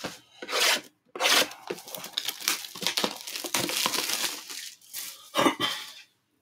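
Plastic shrink wrap being slit and torn off a trading-card box, crackling and crinkling as it is pulled away and crumpled. There is a short burst near the start, then a few seconds of continuous tearing and crumpling, and one more burst near the end.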